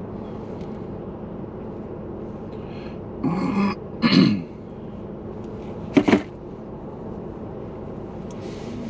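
Steady hum inside a car, with two short vocal sounds a little past three seconds in and a brief sharp rustle about six seconds in.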